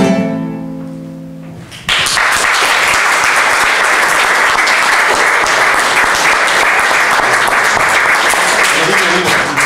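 A guitar chord rings and fades for about two seconds. Then an audience suddenly breaks into loud, steady applause, which lasts to the end.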